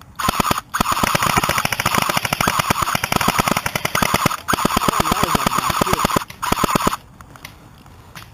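JG vz.61 Skorpion airsoft electric gun firing full-auto: rapid clacking shots over a steady gearbox whine. It fires in about four bursts, the longest around four seconds, and stops about seven seconds in.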